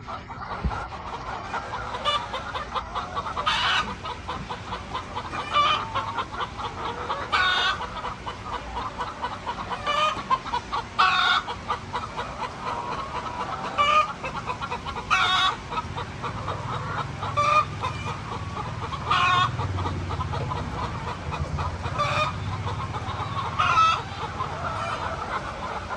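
A flock of chickens clucking continuously, with loud short calls standing out about every one to two seconds.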